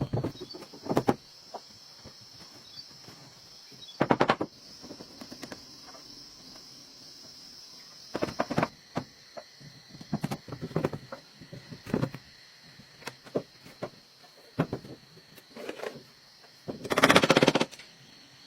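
Carpentry work on a wooden house: short bursts of rapid knocking or rattling, a dozen or so scattered through, the longest and loudest near the end, over a faint steady high-pitched hiss.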